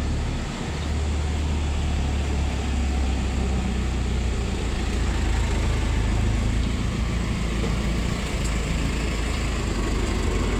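Tempe gembus and long beans cooking in a wok with a little water, with steady simmering and sizzling and a metal spatula stirring, over a continuous low rumble.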